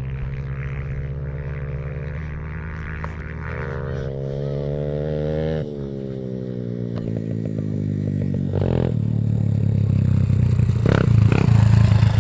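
Small dirt-bike engines riding toward the listener. The engine note climbs and drops back sharply twice and gets louder as the bikes come close, with some rattling near the end.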